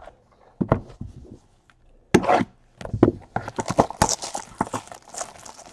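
Handling and opening a cardboard trading card box: a couple of sharp knocks as the box is picked up and set down, then quick scraping and rustling of the cardboard.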